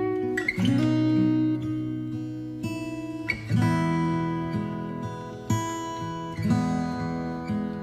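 Background music: an acoustic guitar strumming chords, with a new chord about every second.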